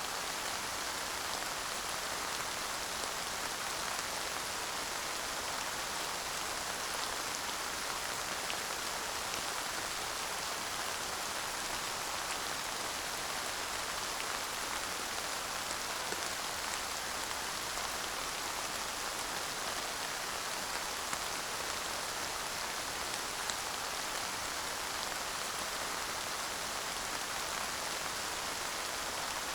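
Steady light rain falling, an even hiss with scattered faint drop ticks and no thunder.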